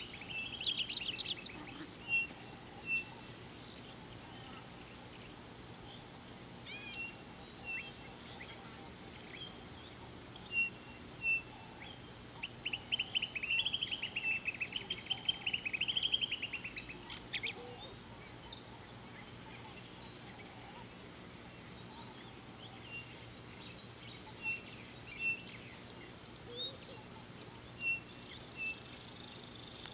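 Wild birds calling: short high whistled notes every second or two, with a burst of fast chattering notes in the middle, over a faint steady low hum.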